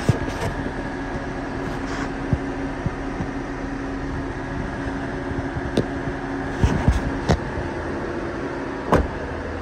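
Small three-cylinder engine of a 1994 Honda Acty mini truck idling with a steady hum. A few sharp knocks and taps from the cab being handled break in, the loudest around seven and nine seconds in.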